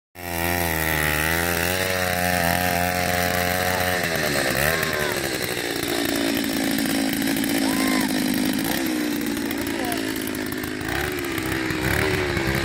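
Gas-powered two-stroke ice auger running as it bores through lake ice, a steady buzzing engine note. About four seconds in the pitch drops and the engine runs lower and less evenly.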